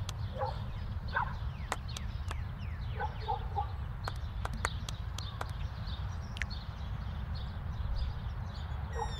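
Shallow surf heard from a camera dipping in and out of the water: a steady, muffled low rumble with scattered sharp clicks and short bubbling blips.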